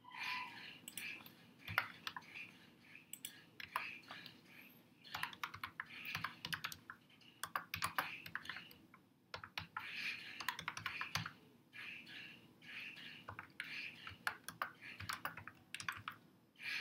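Computer keyboard typing: fast runs of key clicks in bursts, broken by short pauses.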